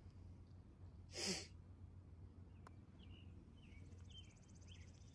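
A short breathy exhale or sigh about a second in. A single sharp click follows a little later, then faint high chirps over a quiet outdoor background.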